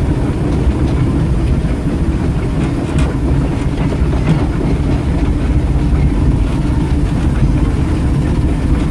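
Disneyland Railroad steam locomotive running, heard from inside its open cab: a steady low rumble of the running gear and wheels on the rails, with a single light click about three seconds in.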